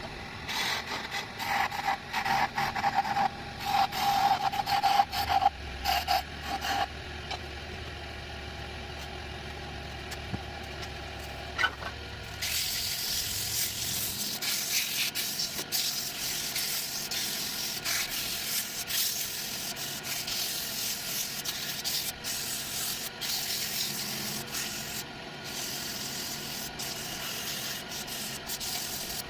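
Wood being worked on a spinning lathe: irregular scraping and rubbing strokes with a ringing tone at first, turning about halfway through into a steady, even sanding hiss.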